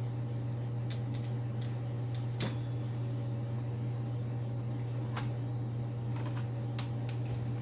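Irregular sharp clicks and snips of hand tools working copper winding out of a ceiling fan motor, clustered near the start and again toward the end, over a steady low hum.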